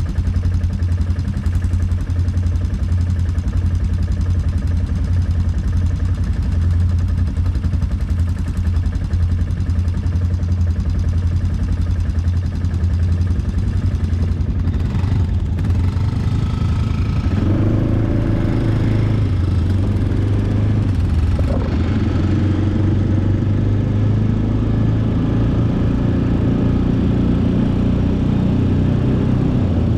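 ATV engine running steadily. Its note wavers and shifts about two-thirds of the way through, then settles again.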